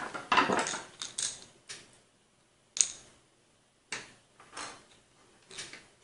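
Light clicks and clinks of a screwdriver and small screws being handled against small plastic parts, with one sharp click about three seconds in.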